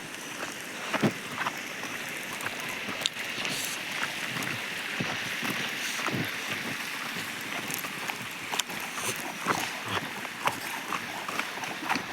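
Water splashing and sloshing, with irregular sharp splashes over a steady hiss of moving water.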